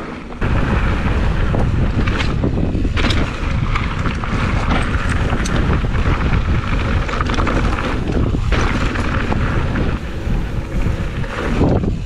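Heavy wind buffeting on the microphone of a camera riding along on a mountain bike at speed down a trail, with a few sharp knocks and clatters from the bike over the bumps.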